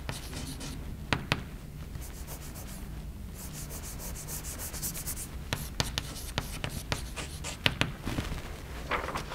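Chalk writing on a blackboard: sharp taps of the chalk and a quick run of scratching strokes in the middle as the letters are written.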